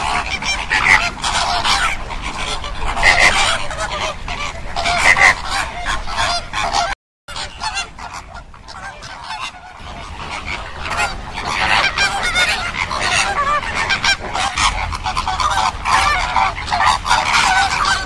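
A flock of flamingos calling in a dense chorus of overlapping honks. The chorus cuts out briefly about seven seconds in, then returns quieter and builds up again.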